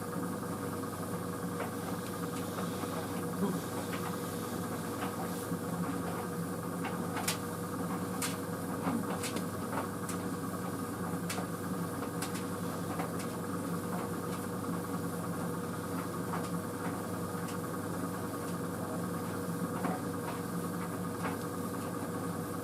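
White Knight CL43 tumble dryer running on high heat: a steady, fairly quiet motor and fan hum with a faint whine, and irregular light clicks and taps as the load tumbles in the drum.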